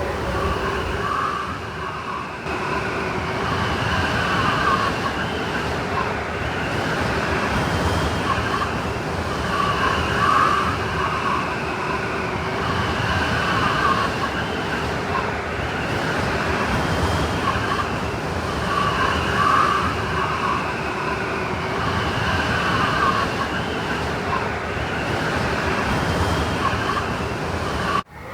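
Blizzard wind blowing steadily through trees: a dense rushing noise with a faint howling whistle over it that swells every nine or ten seconds. It cuts out briefly near the end.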